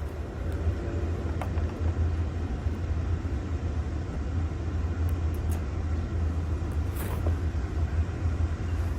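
Steady low rumble, with a few faint clicks from handling.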